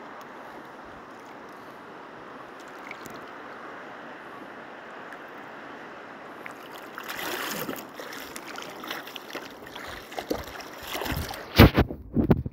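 Steady wash of shallow water at the bank, with some wind on the microphone. About seven seconds in it gets louder, with rustling and splashing, and several loud knocks come near the end.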